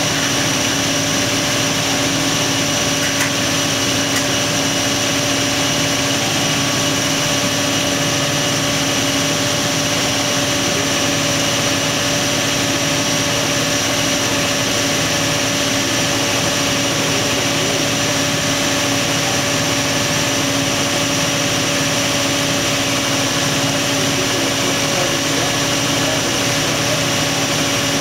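Toyota 2UZ-FE 4.7-litre V8 idling steadily, with no knock, just after its cam timing was reset following a spun camshaft sprocket.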